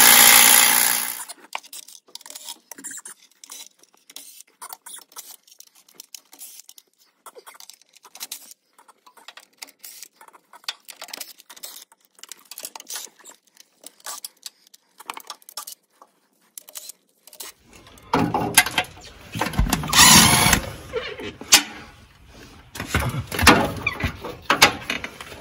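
Transmission pan bolts being backed out with a ratchet. A loud burst in the first second, then a long run of quick faint clicking, then louder bursts of a small motor-driven tool in the last several seconds.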